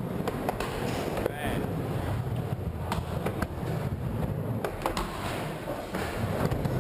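Skateboard wheels rolling on a wooden mini ramp: a steady rumble with a few knocks as the board carves and turns.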